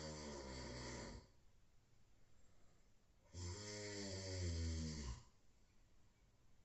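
A sleeping person snoring. One low, buzzing snore trails off about a second in. After a quiet pause, a second snore of about two seconds starts a little past three seconds in.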